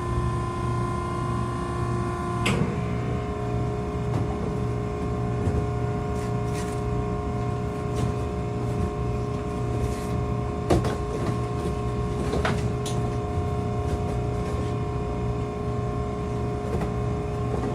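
Hydraulic power unit of a Maren cardboard baler running with a steady hum. Its tone shifts about two and a half seconds in, and a few sharp clicks or knocks come through.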